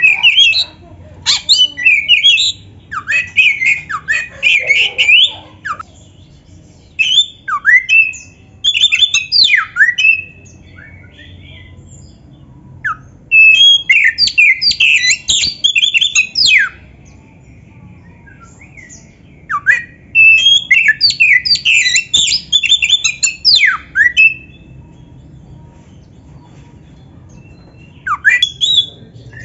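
Oriental magpie-robin singing: several bursts of rapid, varied whistles and chattering notes, each a few seconds long, separated by short pauses.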